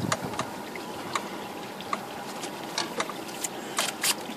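Water splashing beside a small boat as a hooked alligator is hauled against the hull, with scattered sharp knocks and clicks.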